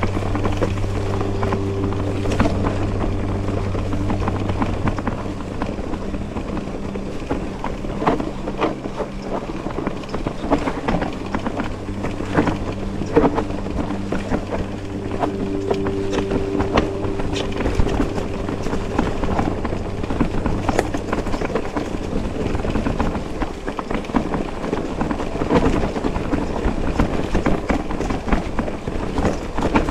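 Mountain bike ride over rough ground: wind on the microphone, with frequent clatter and knocks from the bike, and a steady low hum that fades out about two-thirds of the way through.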